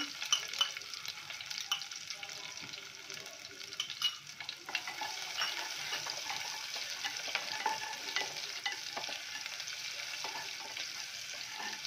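Chopped garlic cloves, curry leaves, mustard seeds and cumin sizzling in hot oil in a pot, with many small crackles. A wooden spatula stirs them, scraping and tapping against the pot.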